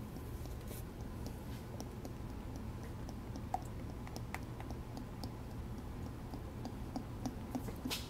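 10W-40 motor oil glugging out of a tipped plastic quart bottle into a funnel: a run of soft, irregular ticks and pops that come faster near the end.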